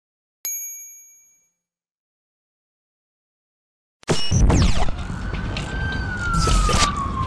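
A single bright chime rings about half a second in and fades over about a second. After a silence, a loud intro sting starts about four seconds in: dense electronic music with a deep low end and a slowly falling, siren-like tone.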